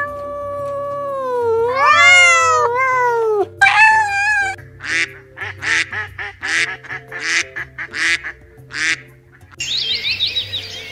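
A cat meowing in long drawn-out calls that slide down and up in pitch, then domestic ducks quacking about a dozen times in quick succession, then a parakeet chattering in rapid high-pitched squawks near the end, all over background music.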